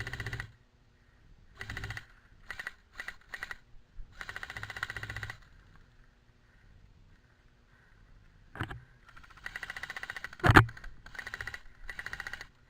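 Airsoft electric guns firing short full-auto bursts, each a rapid, even rattle of about half a second to a second, repeated several times. Two louder sharp knocks come in the second half.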